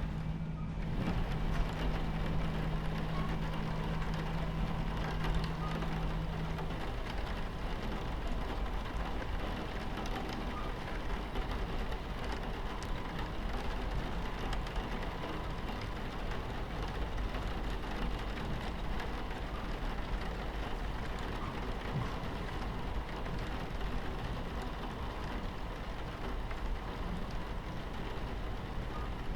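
Steady rain on a train window over the low, continuous rumble of a moving train. A low steady hum is also heard and stops about seven seconds in.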